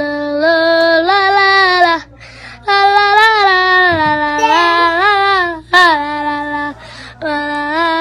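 Singing in a high voice: slow phrases of long held notes with gliding pitch, breaking off briefly twice.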